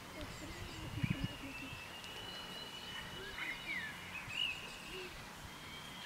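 Small birds chirping and calling in short rising and falling notes over steady outdoor background noise with a faint low hum.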